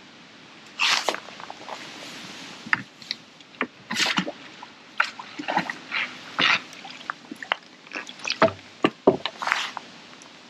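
Irregular clicks, knocks and short rustles of fishing tackle and a landing net being handled, with small water sounds.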